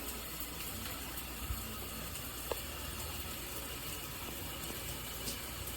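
Water spraying steadily from a SparkPod dual shower head, an even hiss of running shower water with a faint knock or two.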